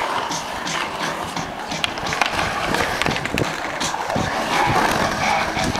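Skateboard wheels rolling and carving on a concrete bowl, a continuous rough rumble broken by scattered sharp clacks from the board.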